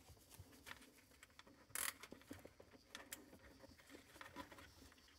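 Faint clicks and rustles of plastic zip ties being handled, with one short, louder rasp about two seconds in as a tie is pulled through.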